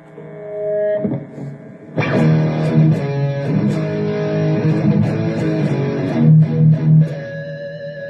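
Electric guitar played through the Donner Arena2000 multi-effects pedal with its Tube 9 overdrive and lead boost: a held note, then from about two seconds in loud distorted chords struck and left ringing, with a short break near the end before playing resumes.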